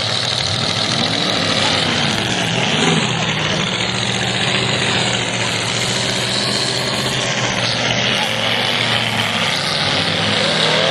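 Demolition derby cars' engines running and revving together, a steady loud mix with pitches that rise and fall now and then.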